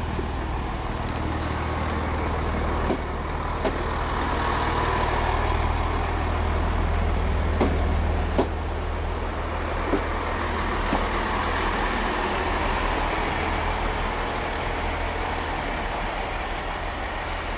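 Chiltern Railways Class 165 diesel multiple unit running as it pulls in along the platform: a steady low engine drone that swells as the coaches pass and then eases, with a few sharp clicks.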